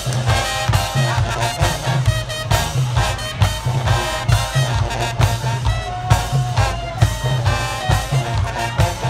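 HBCU-style marching band playing: loud brass over a repeating low brass bass line and a steady drum beat.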